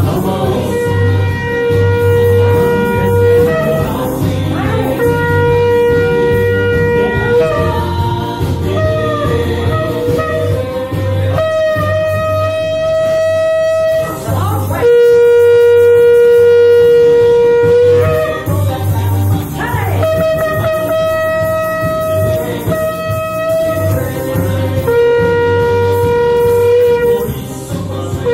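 Shofar blown in a string of long held blasts, each a few seconds long, switching between a lower and a higher note with short slides between them; the loudest blast comes about halfway through. A low pulsing beat runs underneath.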